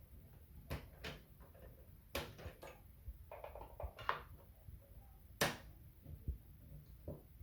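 Scattered clicks and knocks of parts of a Dell Optiplex 9020 SFF desktop being handled while its SSD is removed, with a short rattling stretch midway and one sharper click near the end.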